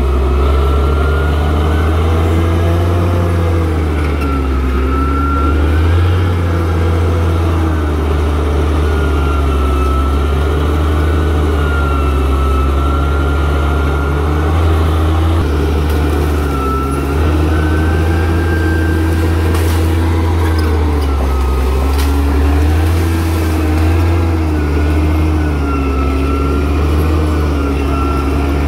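Crawler bulldozer's diesel engine running steadily under work, its pitch rising and falling slightly as the revs shift.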